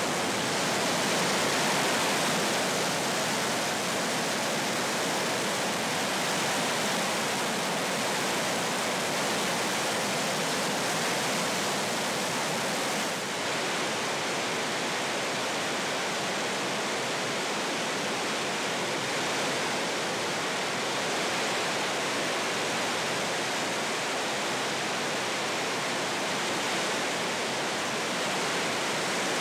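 Roar of a broad waterfall pouring over stepped rock ledges into a river: a steady, unbroken rushing of falling water.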